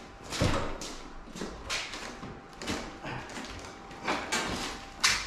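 A series of short knocks and scuffs, about eight, spread unevenly: footsteps on a concrete floor and the handling of a portable generator on its wooden pallet. The loudest come about half a second in and just before the end.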